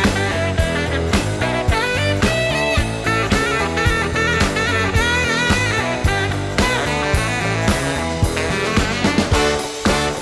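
Upbeat instrumental music with guitar, brass and a steady drum beat.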